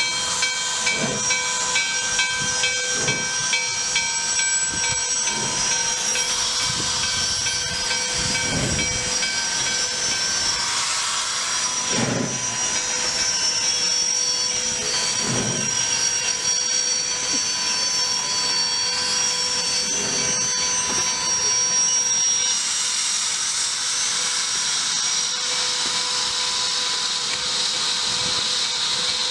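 Nickel Plate Road 765, a 2-8-4 Berkshire steam locomotive, hissing steam with a steady high whine as it creeps forward at walking pace. Soft exhaust chuffs come every two to four seconds through the first two-thirds. About three-quarters through, the hiss grows louder and harsher.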